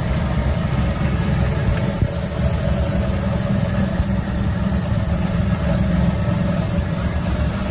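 Steady low rumble and hum of machinery running under load: a generator prototype powering an air conditioner, heater and lamps while a floor fan is plugged in. The noise stays even throughout.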